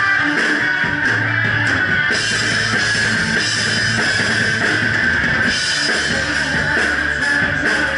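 Live rock band playing loudly: distorted electric guitar over a Ludwig Vistalite drum kit, with the cymbals coming and going.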